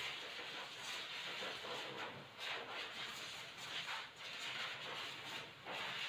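Electric dog clippers fitted with a 9.6 mm blade running steadily as they shave a matted Shih Tzu's coat. The noise dips briefly three times.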